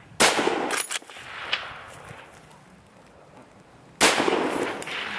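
Two shots from a .338 Lapua Magnum Blaser straight-pull rifle, about four seconds apart. Each is a sharp crack followed by a long rolling echo, and a few quick clicks come just after the first shot.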